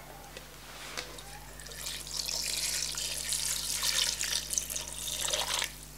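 Water poured from a plastic jug into a pressure cooker full of meat and whole spices, splashing steadily as the pot fills. The pour picks up about a second in and stops just before the end.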